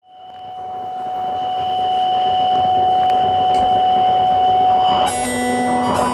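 Live music from a keyboard and acoustic guitar duo, opening on a steady held drone that fades in over the first couple of seconds. About five seconds in it shifts to a new, brighter chord.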